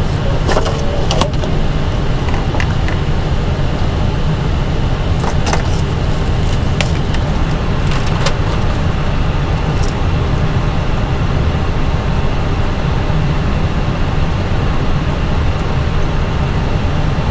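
Steady rushing hum in the cockpit of a parked Airbus A320 with both engines shut down, its air conditioning running on APU bleed air. A handful of sharp clicks come in the first ten seconds.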